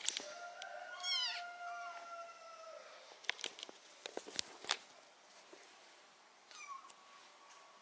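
A cat meowing twice: a long drawn-out meow near the start and a shorter one near the end, with a few light clicks and taps in between.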